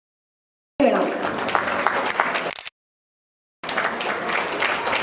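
Audience applauding, a dense patter of many hands clapping. The sound cuts out completely twice, each time for just under a second.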